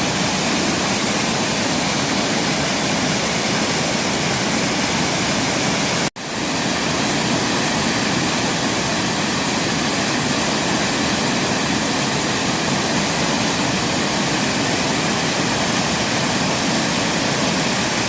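Waterfall rushing in a steady, loud roar of falling water. The sound cuts out for an instant about six seconds in.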